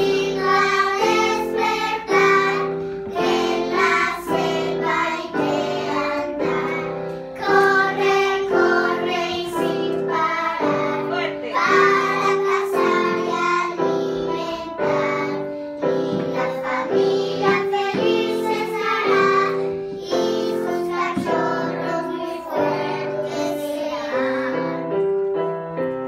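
A group of young children singing a song together, with keyboard accompaniment in a steady rhythm.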